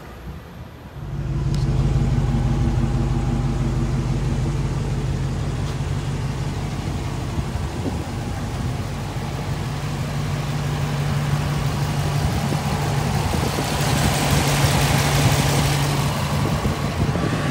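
Dodge Challenger's HEMI V8 idling steadily, breathing through an open-element cold air intake. A rushing hiss builds over it for a few seconds near the end.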